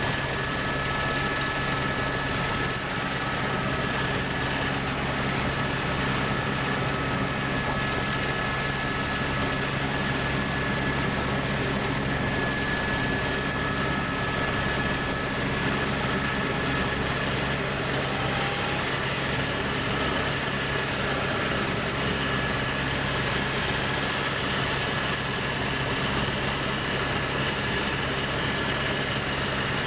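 Steady engine drone of a sightseeing aircraft, heard from inside the cabin, with a couple of thin whining tones held steady above the noise.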